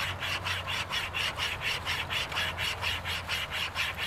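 Pocket wire chain saw strung on a stick bow, sawing back and forth through a dry wooden limb: even rasping strokes, about four a second.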